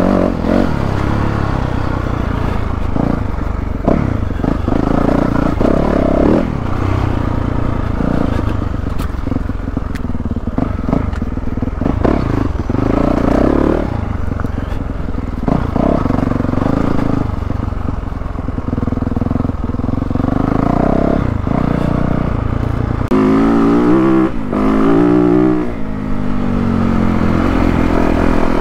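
A 2022 Yamaha YZ450F's four-stroke single-cylinder engine running under constant throttle changes while the dirt bike is ridden, its revs rising and falling, with a run of quick revs a few seconds before the end. Short knocks and clatter come through at times.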